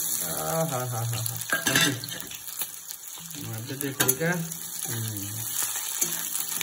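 Chopped onions hitting hot oil in a kadai: a sizzle starts suddenly and keeps going as a spatula stirs them in the pan.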